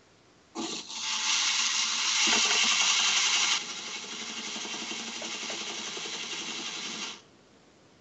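Toy claw machine's electric motors running as the claw gantry moves: a buzzing whine that starts about half a second in, is loudest for the first three seconds, carries on a little quieter and stops abruptly about a second before the end.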